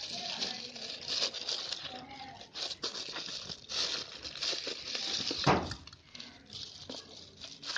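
Plastic packaging bags crinkling and rustling as hands rummage through a cardboard box, with irregular crackles and a few short knocks of the box.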